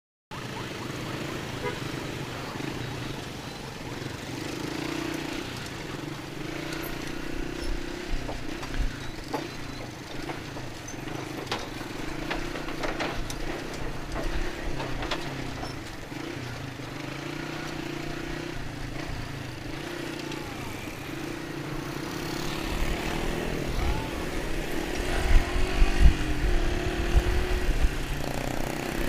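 Motorcycle engine running steadily under way. A deeper, uneven rumble builds and grows louder over the last several seconds.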